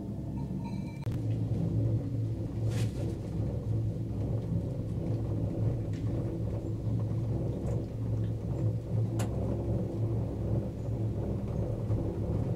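Steady low rumble and hum inside a moving gondola lift cabin, louder from about a second in, with a couple of brief faint clicks.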